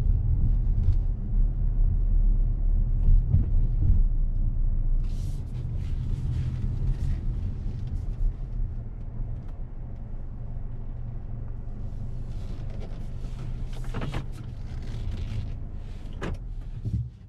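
2024 Mazda CX-5 2.5 S's four-cylinder engine and road noise while driving, a loud low rumble that eases after about four seconds to a quieter, steady low hum. A couple of sharp clicks come near the end.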